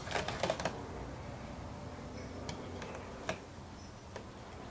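Light clicks and taps of hands working the fittings of a homemade drum carder while loosening a roller. A quick cluster of clicks comes at the start, then single clicks spaced over the rest.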